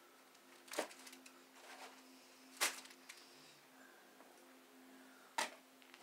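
Three faint sharp clicks, about a second in, near the middle and near the end, over a low steady hum.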